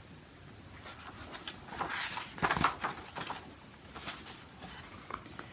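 Paper pages of a hardcover picture book rustling and flapping as the book is opened and leafed through, with the loudest rustles about two to three and a half seconds in and a few softer ones after.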